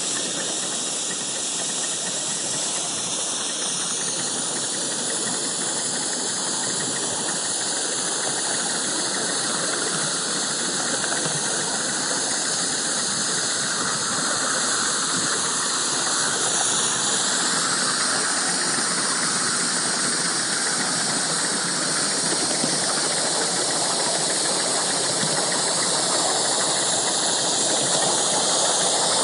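5-inch gauge live-steam model of a C2 Atlantic locomotive running along its track, giving off a steady hiss of steam.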